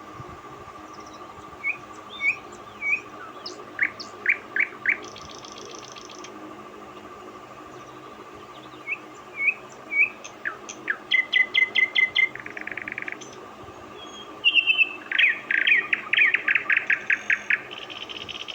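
Common nightingale singing: phrases of repeated short whistled notes and fast rattling trills, with brief pauses between phrases.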